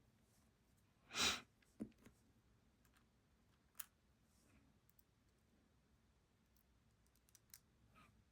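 Quiet small clicks of tiny brass lock side pins being picked up and set into the lock core with magnetic tweezers, a few scattered ticks several seconds apart, with one louder short rush of noise about a second in.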